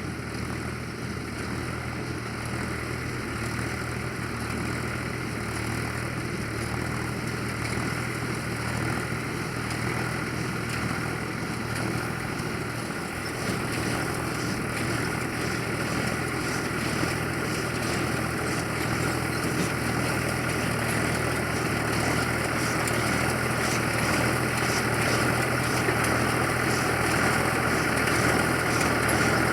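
Ford 3000 tractor's three-cylinder engine running steadily under load while baling hay, growing gradually louder as it comes closer.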